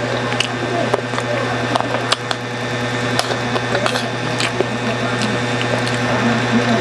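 Eating sounds close to a clip-on microphone: chewing and sharp clicks of a spoon and fork on a plate, several times, over a steady mechanical hum.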